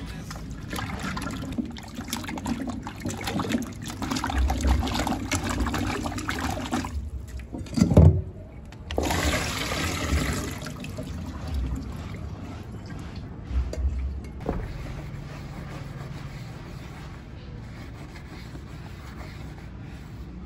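Water sloshing and splashing in a metal pot as cubed vegetables are rinsed by hand in a stainless-steel sink. About eight seconds in, the pot is tipped and its water gushes out into the sink; this is the loudest moment, and water trickles and splashes after it.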